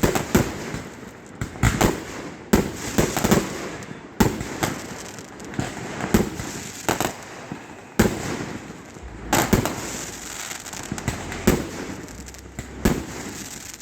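Aerial fireworks going off overhead in a loud, irregular string of sharp bangs, sometimes several a second, with crackling between them.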